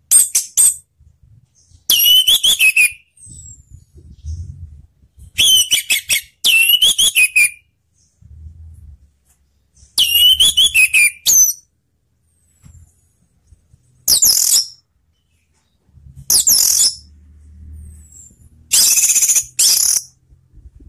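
Orange-headed thrush (anis merah) singing loud, high-pitched whistled song phrases with falling glides. About eight short phrases come one after another with pauses between them.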